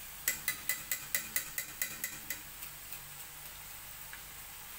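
A wire-mesh skimmer full of half-fried potato fries, lifted out of the oil and tapped over and over on the rim of a kadhai to drain it: about a dozen quick metallic taps, roughly four a second, fading out over about three seconds. Faint frying sizzle from the oil underneath.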